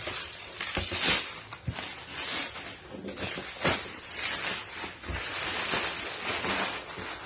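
Packaging being pulled and handled: irregular rustling and crinkling with a few soft knocks.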